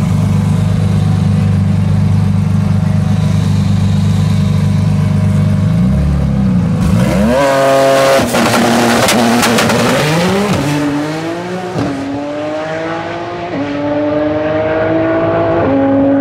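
Nissan GT-R's twin-turbo V6 running steadily at the drag-strip starting line, then launching hard about seven seconds in with a loud burst. The engine note then climbs and drops back about four times as it shifts up through the gears pulling away down the track.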